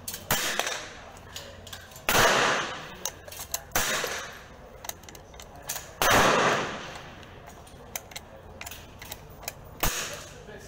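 Rifle shots on a shooting range, .22 LR fire: five sharp reports, the two loudest about two and six seconds in, each trailing off in an echo. Small clicks of the rifle's action between the shots.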